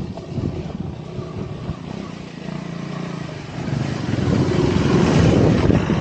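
Motorcycle engine, a Royal Enfield Himalayan 450's single-cylinder, pulling up a rocky off-road climb: a steady engine note for the first few seconds, then opened up and louder from about four seconds in.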